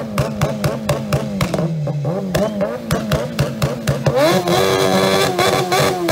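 Open-piped motorcycle engine held on its rev limiter, the ignition cutting out in a rapid stutter of about four or five bangs a second. About four seconds in, the revs sweep up to a steady, unbroken high pitch for nearly two seconds, then begin to fall.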